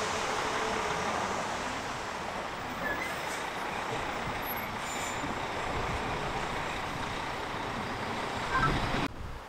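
Heavy-haulage lorry's diesel engine running as it hauls a locomotive on a low-loader trailer, a steady noise without a clear pitch that cuts off suddenly near the end.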